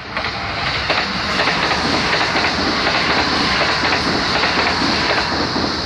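Kintetsu 5800-series electric train passing close by at speed: a steady rush of wheel and running noise with rail-joint clickety-clack. It swells over the first second and eases slightly near the end.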